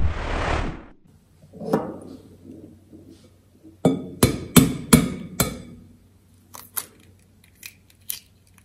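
A whoosh fading out over the first second, then an egg knocked five times in quick succession against a glass bowl to crack its shell, followed by a few faint crackles as the shell is pulled apart.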